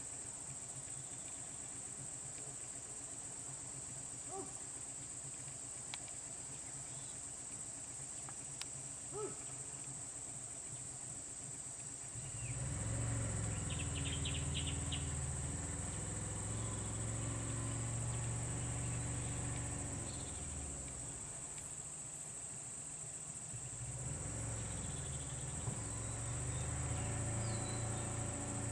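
Insects drone steadily at a high, unbroken pitch, with a few short bird chirps. About twelve seconds in a low engine hum sets in. It fades near twenty seconds and comes back about twenty-four seconds in.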